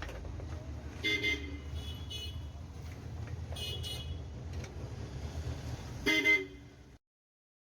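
Vehicle horns tooting briefly three times, the last the loudest, over a steady low engine rumble; the sound cuts off abruptly about a second before the end.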